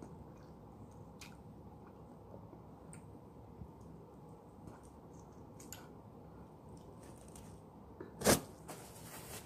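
Faint wet mouth sounds of biting, sucking and chewing pieces of lemon, with small smacks now and then. One sharp knock comes about eight seconds in and is the loudest sound.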